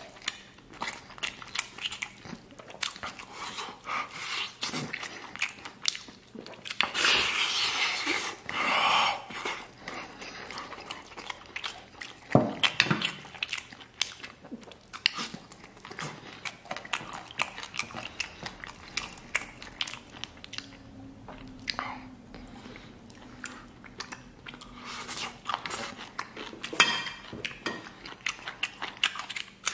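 Close-miked biting and chewing of a chicken leg held in the hands: many short mouth smacks and clicks, with louder stretches about 7 and 9 seconds in.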